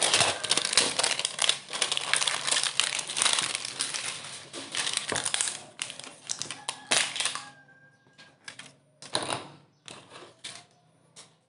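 Clear plastic shrink wrap on a smartphone box crinkling as it is handled, dense and loud for about seven seconds. After that come a few separate light taps of the cardboard boxes on a wooden table.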